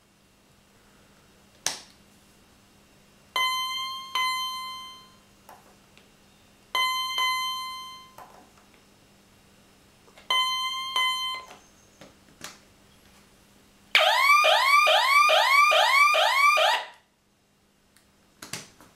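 Philips SBC288 alarm unit: a click, then three steady-pitched double beeps about three seconds apart as its keypad is worked. Then its siren wails in fast rising-and-falling sweeps, about three a second, for some three seconds, loudest of all, and cuts off suddenly, followed by a few soft clicks.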